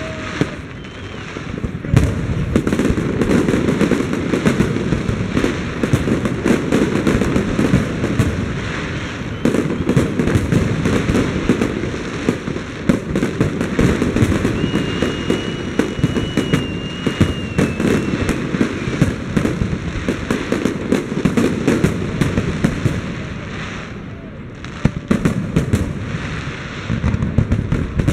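Aerial fireworks display in a dense barrage: rapid bangs and crackling shell bursts one on top of another, with a thin high whistle for a few seconds midway. The barrage eases briefly a few seconds before the end, then builds again.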